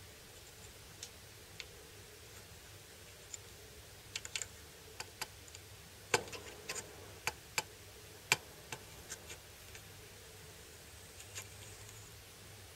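Faint, irregular clicks and taps of fingers handling the small plastic gears and brass-coloured part of a geared mechanism, most of them in the middle few seconds, two louder than the rest.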